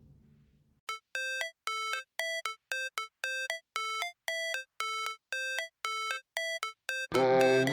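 Background music: a track fades out, then a melody of short, evenly spaced notes plays, about two a second, before the full song comes in near the end.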